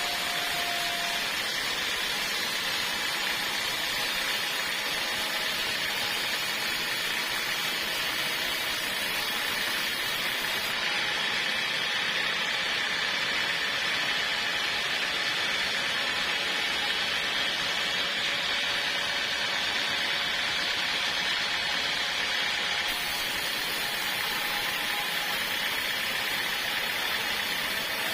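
Portable sawmill running steadily, a constant even mechanical noise with no breaks.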